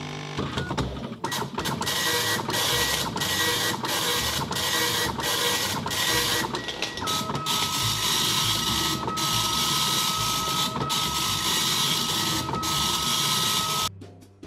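A Panasonic KX-P2123 24-pin dot matrix printer runs its built-in self-test with the top cover off. The print head's rasping buzz sweeps line after line, broken by brief pauses between lines as the paper advances, then stops abruptly near the end. A steady whine underneath drops in pitch about halfway through.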